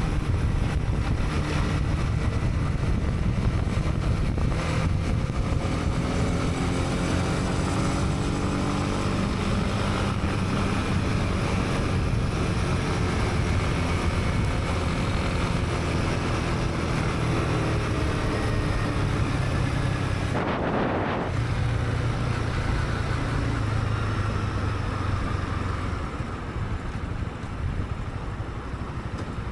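Honda CB300R's single-cylinder engine running under way, its note rising and falling with the throttle, with wind noise on the helmet-mounted camera. The sound gets a little quieter near the end.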